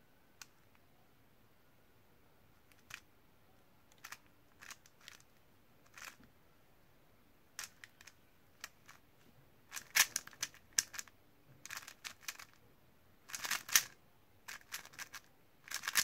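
Stickerless plastic 3x3 speed cube having its layers turned by hand: a few scattered clicks at first, then quicker runs of clacking turns, loudest in two bursts about ten and fourteen seconds in.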